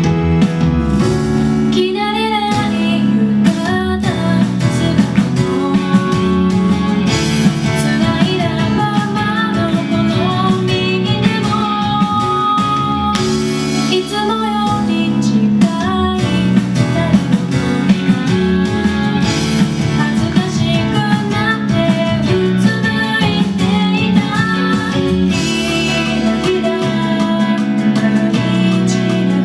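Pop song with a female singing voice over guitar-led band backing.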